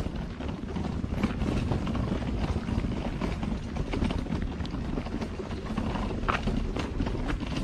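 Footsteps crunching along a dirt-and-gravel trail in an irregular patter, over a steady low rumble of wind buffeting the microphone.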